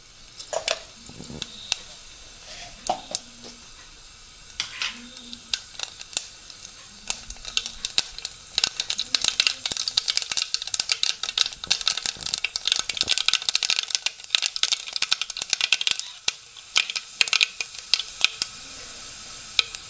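Mustard seeds frying in hot coconut oil: a steady sizzle with sharp crackles and pops that grow much thicker from about eight seconds in, as the seeds begin to splutter and burst during tempering.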